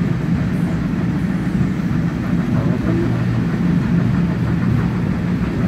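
Heritage railway carriage running along the track, heard from inside: a steady low rumble of wheels on rail with a constant hum.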